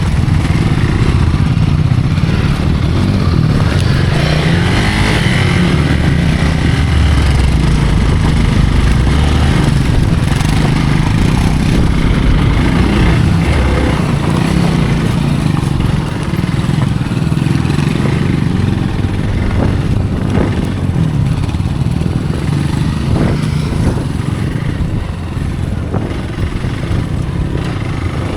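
Hero Xpulse motorcycle's single-cylinder engine running under way, steady throughout, with a few short knocks and clatter in the later part and the loudness easing slightly toward the end.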